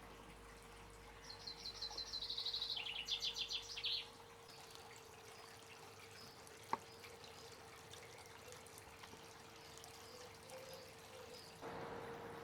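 A small bird sings a fast trill of rapidly repeated high notes that steps down in pitch, lasting about three seconds starting about a second in, over faint trickling water and a steady faint hum. A single sharp click comes midway.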